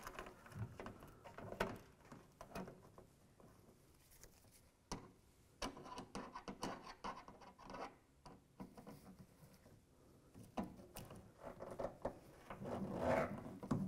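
Phillips screwdriver starting the screws of a hood guard (bug shield) into the underside of a pickup's hood: faint scraping and rubbing with scattered light clicks, busier and louder near the end.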